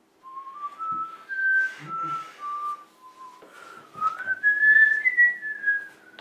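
A person whistling a short tune: one clear tone stepping up and down through a string of notes, then climbing to its highest notes near the end before dropping back.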